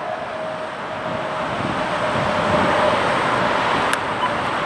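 Road traffic rushing past, a steady wash of tyre and engine noise that swells a little midway. A faint steady tone fades out in the first couple of seconds, and there is a single sharp click near the end.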